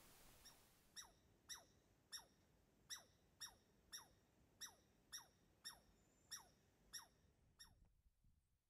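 A small animal calling: about a dozen short squeaky notes, each dropping quickly in pitch, about two a second, then stopping near the end.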